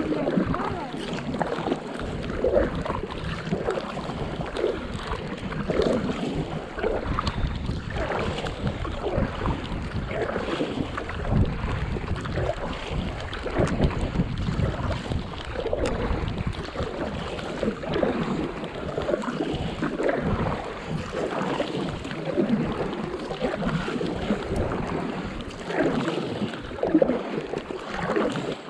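Stand-up paddleboard paddle strokes: the blade dipping and pulling through the water with splashes and water lapping, in soft rain. Wind rumbles on the microphone around the middle.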